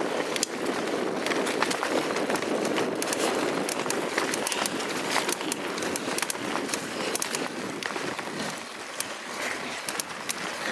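Mountain bike rolling along a dirt woodland trail, heard from a camera mounted on the bike: a steady rumble of tyres on dirt with frequent small clicks and rattles.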